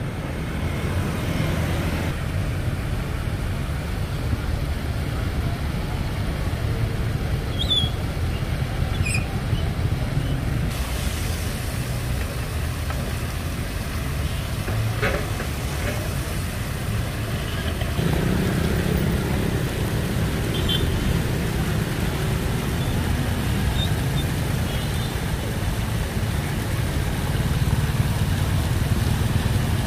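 City street traffic: a steady low rumble of passing vehicles that gets a little louder about eighteen seconds in.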